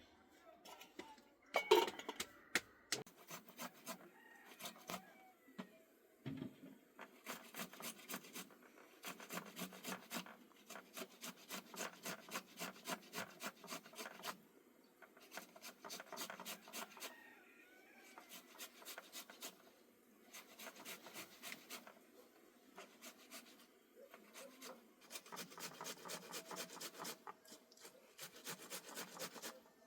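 A hand tool rasping back and forth on a workpiece, in runs of quick even strokes, a few a second, with short pauses between runs. A sharper knock comes about two seconds in.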